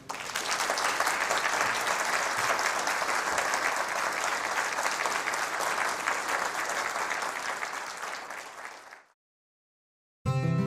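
Studio audience applauding, the clapping fading out about nine seconds in. After a moment of silence, acoustic guitar music starts near the end.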